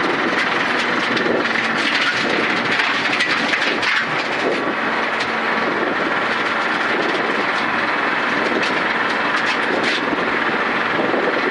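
Suzuki Ignis Sport rally car at speed on gravel, heard from inside the stripped, caged cabin: steady engine and road noise, with many short ticks of gravel hitting the underbody.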